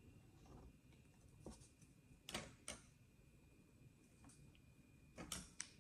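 Near silence broken by a few faint, short scratches and taps of a marker tracing around a popsicle-stick triangle on construction paper.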